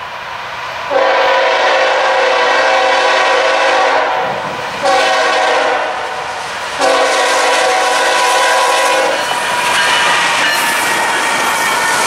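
Air horn of a BNSF GE ES44C4 diesel-electric locomotive sounding three blasts, long, shorter, long, as it nears a grade crossing; then the locomotives roll loudly past with wheel and engine noise.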